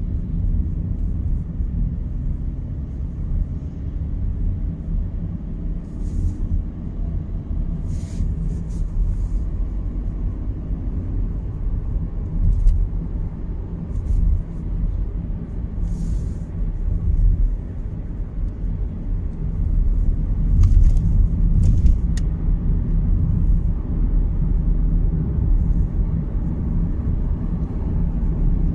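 Engine and road rumble inside a Volkswagen Golf Mk7's cabin, steady and low, as the car pulls away and gathers speed. A few faint short clicks are scattered through.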